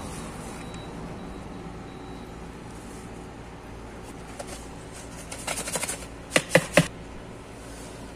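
A few light clicks, then three quick sharp knocks close together a little past the middle, over a steady low background hum.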